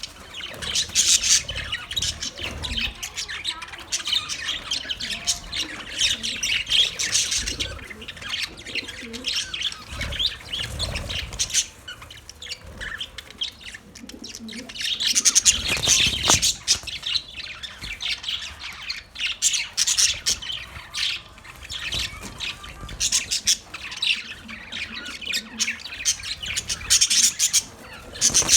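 Budgerigars chirping and chattering in a steady stream of rapid high chirps and squawks, growing busier in several stretches.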